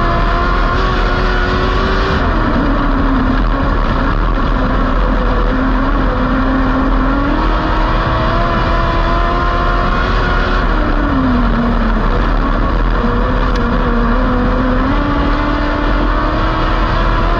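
Dwarf race car engine at racing speed, heard from inside the cockpit on a dirt oval. The engine note drops twice as the driver lifts off for the turns, then climbs again as he gets back on the throttle.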